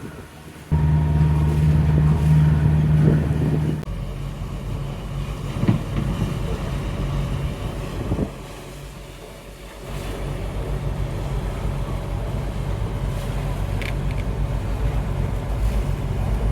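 Sailboat's engine running steadily while motoring, with wind on the microphone. Near the start a loud, steady, low tone sounds for about three seconds, then cuts off.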